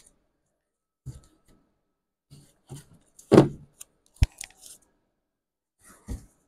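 Comic books in plastic bags and backing boards being handled on a counter: a few soft rustles and slides, a louder thud about halfway through as a book is set down, then a sharp tap just after.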